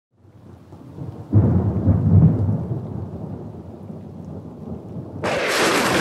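A deep rumble of thunder that swells from nothing, breaks loud about a second in and slowly dies away; about five seconds in a steady rushing hiss starts suddenly.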